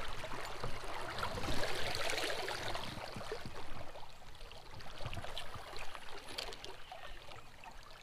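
Shallow creek water running over a riffle: a steady rushing, trickling noise, a little louder in the first few seconds and easing off after that.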